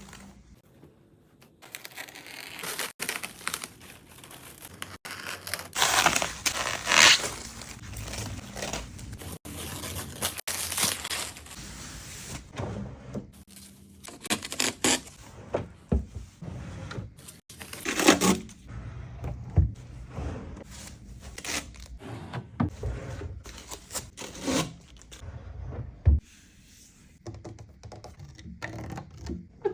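Furniture packaging being unboxed: tearing, rustling and crumpling of the wrapping in short bursts, with a few knocks and thuds of the TV stand's parts being handled.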